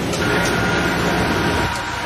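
Steady, loud rushing machinery noise with two faint steady tones that come in about a quarter second in.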